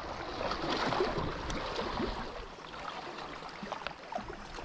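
Small sea waves washing and lapping against rocks at the water's edge, the wash swelling about a second in and then easing off.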